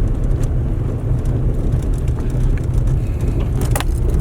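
Car interior noise while driving: a steady low rumble of engine and tyres, with light rattling clicks near the end.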